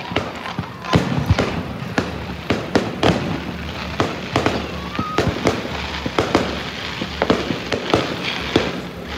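Aerial fireworks going off in quick, irregular succession, about three bangs a second, over a continuous rumble of further bursts and crackle.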